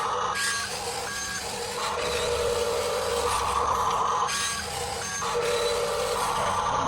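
Electric motors of radio-controlled construction models whining as they are worked, the whine switching back and forth between a lower and a higher pitch every second or so.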